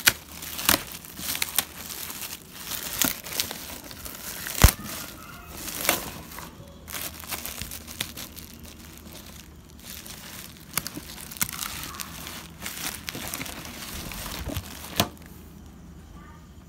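Clear plastic wrapping film crinkling and tearing as it is handled and pulled off, with many sharp crackles, the loudest about four and a half seconds in. The crackling dies away near the end.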